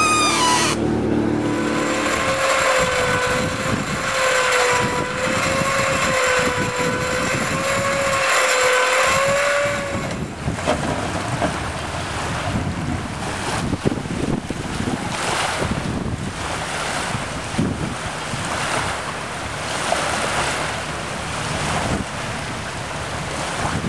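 A motor whines steadily, wavering slightly in pitch, and stops about ten seconds in. After that, wind buffets the microphone over choppy water.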